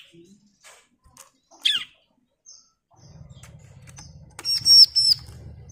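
Bar-winged prinia (ciblek) calling: a single sharp chirp about two seconds in, then a quick run of three high, clear notes near the end, the loudest sound here, along with wing flutters. A low steady hum sets in about three seconds in.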